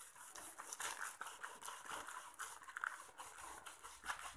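Large kitchen knife sawing back and forth through a paper-wrapped chicken shawarma roll: a faint run of crackly, crunchy scrapes as the blade cuts the butter paper and filled flatbread.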